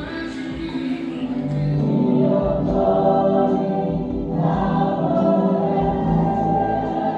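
Music with a choir singing held chords, growing louder about two seconds in.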